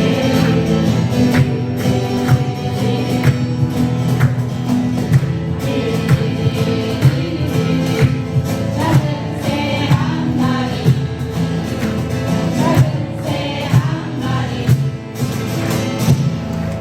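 Live acoustic guitar music: several steel-string acoustic guitars strummed in chords while a group of voices sings together.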